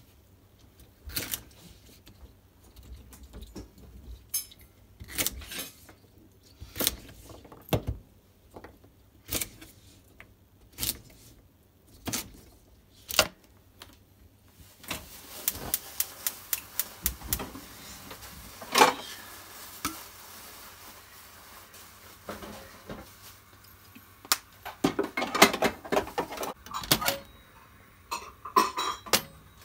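Kitchen knife knocking on a plastic cutting board in irregular single strokes as vegetables are cut, followed later by quicker runs of light clicks and clatter of kitchenware.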